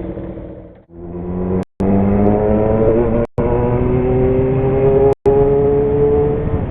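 Kawasaki Zephyr 750's air-cooled inline-four engine running through an MRS exhaust under way, its pitch slowly rising as it gathers speed. The sound dips about a second in and cuts out briefly three times.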